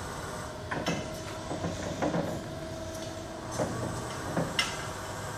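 Cat NR4000 electric reach truck driving and turning: a steady motor hum with a whine partway through, and a series of sharp clicks and clunks.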